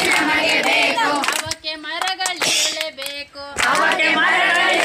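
Singing, with short pauses between phrases and a few sharp clicks or claps.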